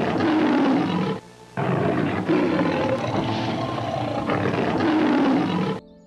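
Lion roaring in long, rough stretches, with a short break a little over a second in. It cuts off suddenly just before the end.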